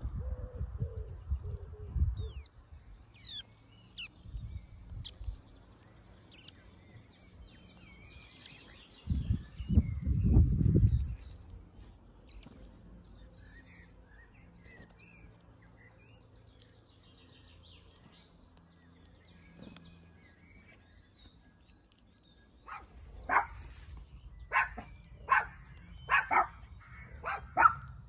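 Small birds chirping and singing throughout, over loud low rumbles at the start and again about ten seconds in. Near the end comes a run of about seven short, loud, sharp sounds, spaced roughly half a second to a second apart.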